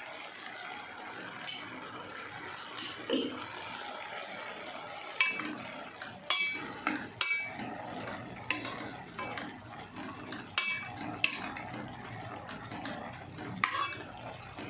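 A steel spoon stirring sweet corn kernels in a metal kadai, knocking and clinking against the pan with short metallic rings, over a steady low hiss. The clinks come sparsely at first, then repeat every half second or so from about five seconds in.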